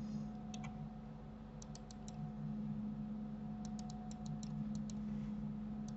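Light clicks at a computer: a single click, then short runs of three to five quick clicks, as a mouse and keys are worked. A steady low hum runs underneath.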